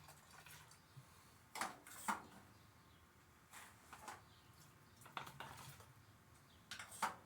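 Light clicks and knocks, coming in four pairs, from handling a small hand siphon and its container while the old gasoline is drained from a chipper shredder's tank.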